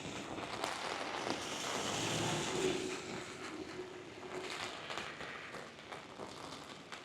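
Storm wind and rain, with wind buffeting the microphone; the rushing swells louder about two seconds in and eases after. A faint steady hum runs through the middle.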